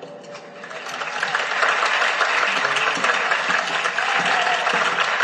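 A large crowd applauding, building from quiet to full over the first two seconds, then holding steady.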